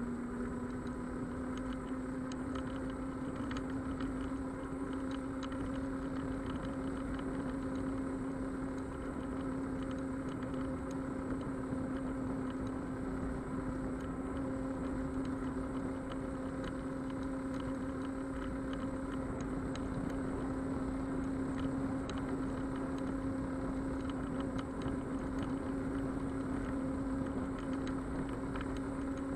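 Xiaomi Mijia M365 electric scooter's hub motor whining at cruising speed, one steady tone that creeps slightly higher in pitch, over a constant rumble of tyre and wind noise with scattered small clicks.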